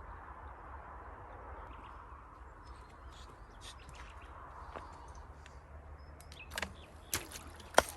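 Small garden-pond waterfall trickling as a steady hiss, with short bird chirps above it and a few sharp knocks in the last second and a half.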